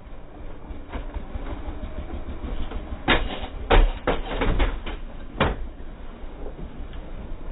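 Sharp knocks and thumps against a car door as two men grapple through the driver's open window, several in quick succession about three to five and a half seconds in, over a low steady rumble.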